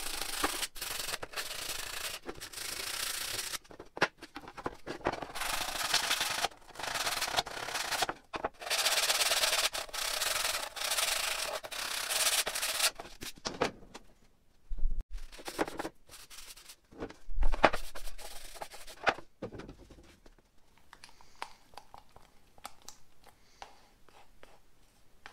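Hand-sanding a plywood panel coated with cured epoxy, rubbing it in three spells of steady strokes over the first half, to clear the epoxy where the post meets the panel. A few knocks follow as the pieces are handled, then only faint clicks and rustling.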